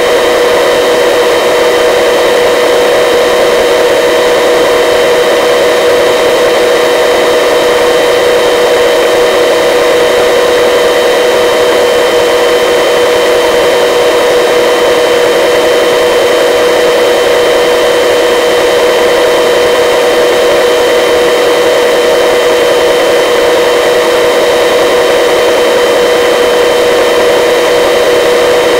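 Search-and-rescue helicopter in flight: a loud, steady drone from its turbine engine, gearbox and rotors, with a constant high whine above it, unchanging throughout.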